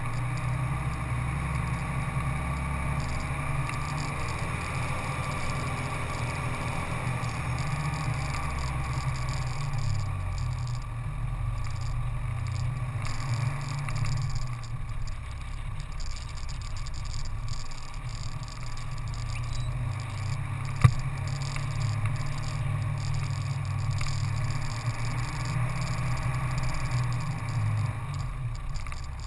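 Engine of an off-road vehicle running steadily while driven along a dirt track, with continuous rumble and road noise from the tyres on the dirt. There is a single sharp knock about two-thirds of the way through.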